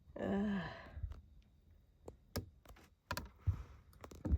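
A short hummed vocal sound falling in pitch, then a scattered run of sharp, irregular clicks and taps.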